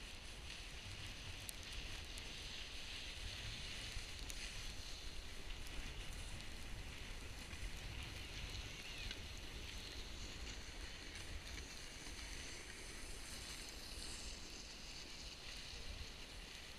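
Snowboard sliding down a snow slope: a steady hiss of the board's base and edges on the snow, with a low wind rumble on the microphone.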